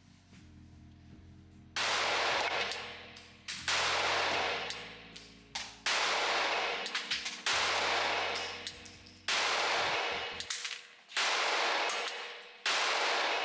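Glock 43X 9mm pistol fired in slow, evenly spaced shots: seven sharp reports about every two seconds, each ringing out in a long echoing tail.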